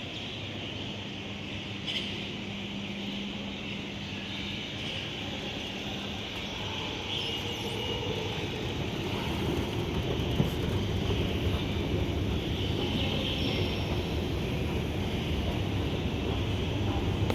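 A train on the tracks: a steady low rumble that grows louder a little past halfway, with a single sharp click soon after.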